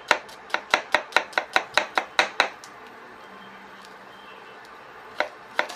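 Kitchen knife rapidly chopping diced red onion on a cutting board, about five sharp knocks a second. The chopping pauses about two and a half seconds in, and two more chops come near the end.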